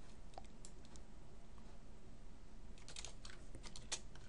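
Computer keyboard keys being pressed while editing code: a few scattered clicks, then a quick run of keystrokes about three seconds in, over a faint steady hum.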